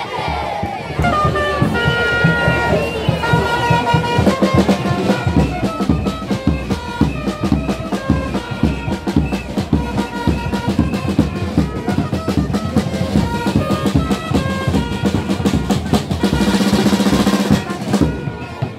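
Music played on drums and brass instruments: a busy, steady drumbeat under held brass notes, swelling louder for a moment near the end.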